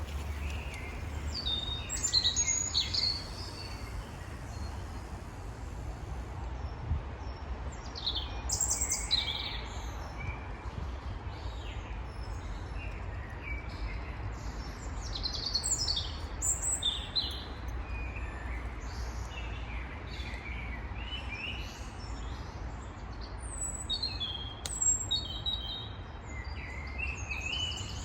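Several songbirds chirping and whistling in short calls on and off, thickest in the second half, over a steady low rumble.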